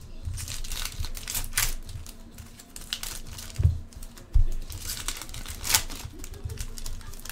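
Foil trading-card pack wrappers crinkling and being torn open, with irregular sharp crackles as the cards and foil are handled. A couple of dull knocks on the table about four seconds in.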